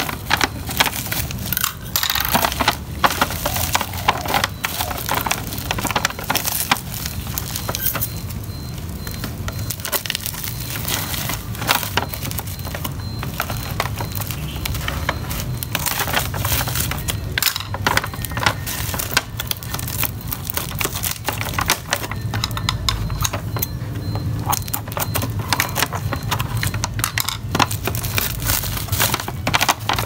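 Plastic mailer bag and bubble wrap crinkling and crackling as scissors cut through them and hands pull the wrapping apart, with many small irregular clicks and snaps throughout.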